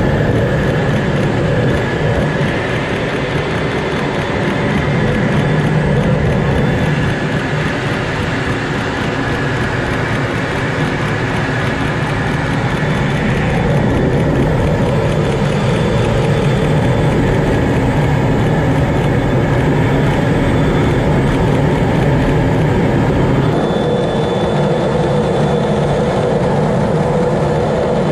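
Jet engine and airflow noise heard from inside a Blue Angels jet's cockpit in formation flight: a steady, loud rumble with a faint thin whine above it, its tone shifting slightly about three-quarters of the way through.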